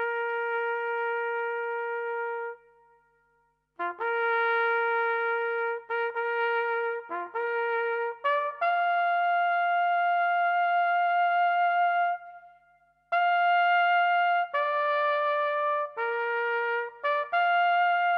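A lone bugle plays a slow ceremonial call of long held notes with short breaks between phrases, one long note held for several seconds in the middle. It is sounded while officers stand at the salute.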